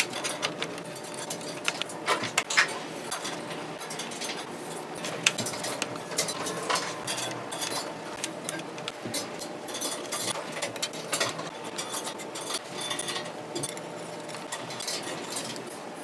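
Irregular light clicks, knocks and clinks of small bicycle parts being handled and fitted: headset spacers and covers going onto the steerer of a carbon road bike frame, with internally routed cables being worked through.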